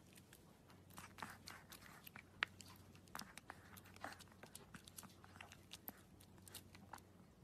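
Puppy chewing a small hard treat: a run of faint, irregular crisp crunches and clicks of its teeth.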